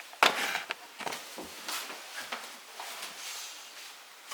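Fabric rustling and a few light knocks from handling clothes while getting dressed, loudest in a burst near the start, then scattered softer rustles.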